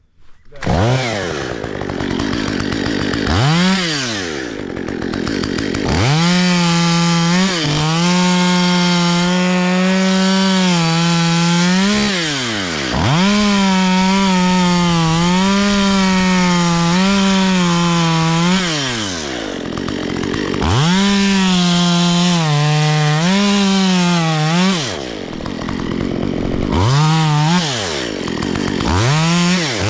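Petrol chainsaw cutting oak: revved to full throttle and held there for several seconds at a time, the note wavering under load, dropping back between three long cuts, with short blips of the throttle near the start and the end.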